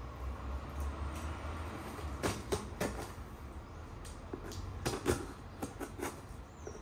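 Cardboard box being opened with a box cutter: scattered short clicks and scrapes of the knife and the cardboard, in a cluster about two seconds in and another about five seconds in, over a faint low hum.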